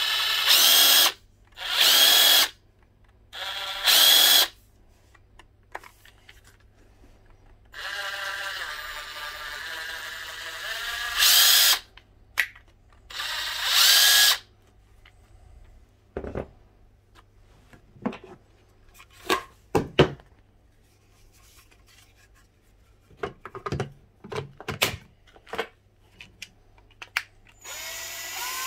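Ryobi One+ 18V cordless power tool motor run in short trigger pulls, whirring up and stopping: three quick bursts, then a longer steadier run about 8 seconds in and two more bursts. Scattered clicks and knocks of the tool being handled follow, then one more burst near the end.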